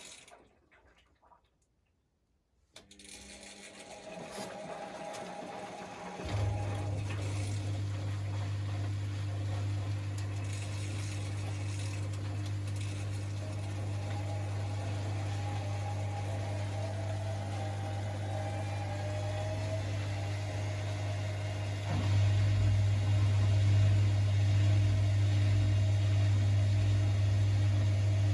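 Bosch Maxx WFL1662 washing machine in its spin cycle: after a brief near-silent pause the motor starts turning the drum, and a loud steady low hum sets in, stepping up louder about three quarters of the way through as the drum speeds up, with a rising whine near the end. This low hum is the horrible spin noise.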